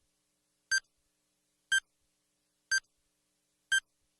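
Short electronic beeps, one each second, four of them, all on the same high pitch with near silence between.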